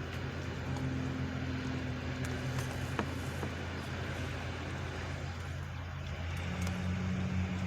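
Steady low mechanical drone with one sharp knock about three seconds in.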